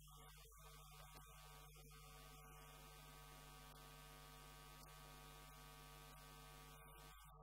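Low, steady electrical mains hum with a faint buzz from the sound system, with a few faint clicks; the guitar and voices are silent.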